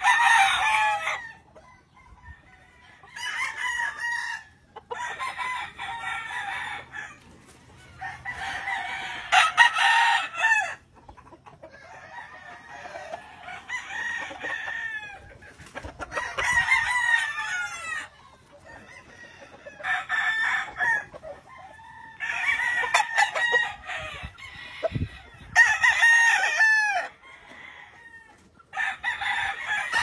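Gamefowl roosters crowing one after another, about ten crows in all, each lasting one to three seconds, with some crows overlapping from different birds.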